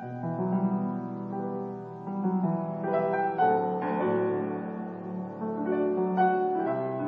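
Background piano music: slow, held chords that change every second or so.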